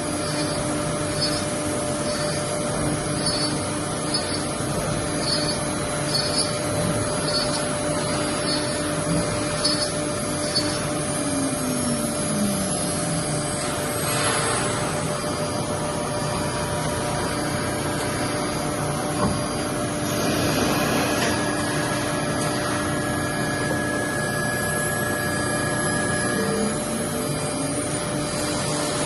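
CNC router with automatic tool-change spindle running a test cut: a steady spindle whine over continuous machine noise. A motor tone falls in pitch about eleven seconds in and rises again near the end. Faint high ticks come about twice a second in the first ten seconds.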